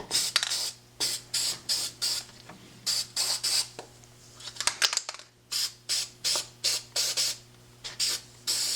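Aerosol can of CRC Heavy Duty Corrosion Inhibitor sprayed onto padlocks in a long run of short hissing bursts, about two a second, with a brief pause about halfway through.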